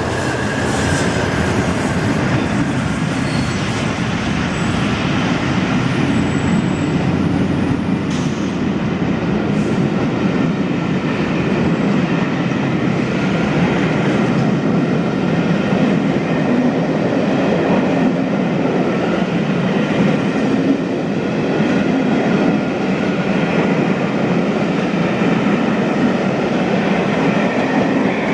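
A train of locomotives and coaching stock passing, a steady rolling rumble with wheels clicking over the rail joints.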